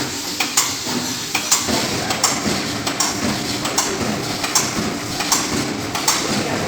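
Rubber cutting machine running, its blade striking with a regular clack about every three-quarters of a second over a steady mechanical hum.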